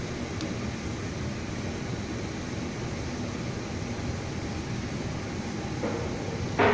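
Steady mechanical hum of background machinery, with a brief clatter just before the end.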